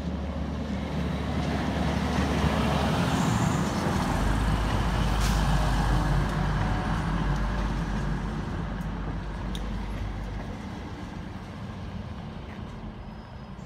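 TransPennine Express Class 185 diesel multiple unit running into the station along the platform. Its diesel engine drone and wheel-on-rail rumble grow louder as the train passes close, with the engine note dropping about four seconds in, then fade as it slows to arrive.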